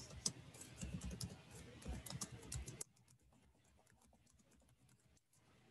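Faint typing on a computer keyboard, a quick run of key clicks that stops about three seconds in.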